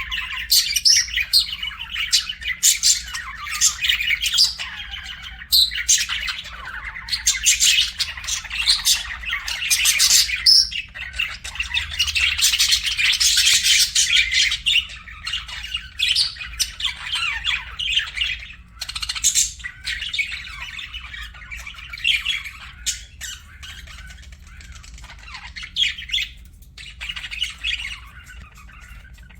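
Budgerigars chirping rapidly and continuously, densest in the first half and thinning out toward the end. A faint steady low hum runs underneath.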